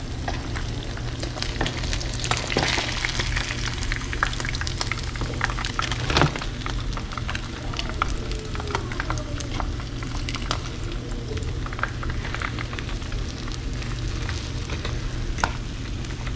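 Food frying in hot grease in a pan: a steady sizzle with a constant scatter of small pops and crackles, over a steady low hum.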